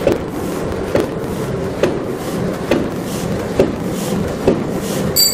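A paper cup creasing and die cutting machine (MR-930A) running, its press striking in an even rhythm a little faster than once a second over a steady mechanical clatter.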